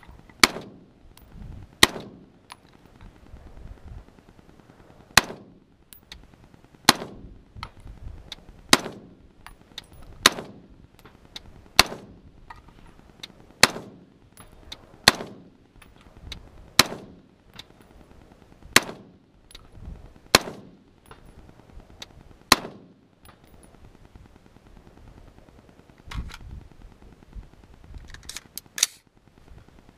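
Smith & Wesson M&P15 AR-15 rifle firing slow, aimed single shots: about a dozen sharp reports, one every one and a half to two seconds, stopping about 23 seconds in. Near the end there is a dull thump and a few light clicks as the rifle is handled.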